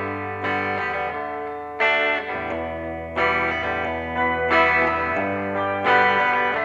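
Electric guitar through a chorus effect playing ringing chords, a new chord struck about every second and a half over a low sustained note.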